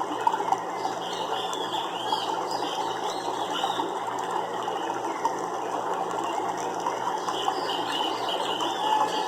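Nature soundscape of a dense chorus of fast rattling, clicking animal calls, with repeated high arching chirps over it.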